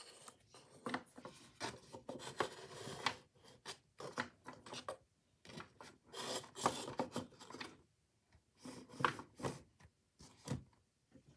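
Small objects being picked up, shifted and set down by hand: irregular rubbing, scraping and light knocks, with short pauses between them.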